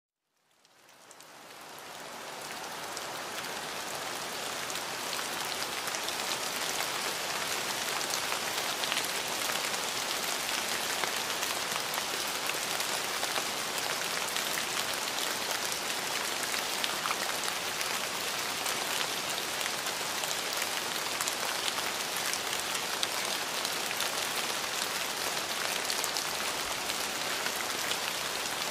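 Steady rain falling, with the patter of individual drops, fading in over the first couple of seconds.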